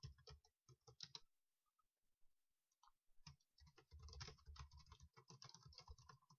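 Faint typing on a computer keyboard: a short run of keystrokes, a pause of about two seconds, then a longer, quicker run of keystrokes.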